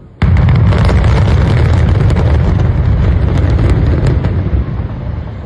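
A sudden loud blast-like rumble with sharp crackles through it, starting a moment in and dying away over about four seconds.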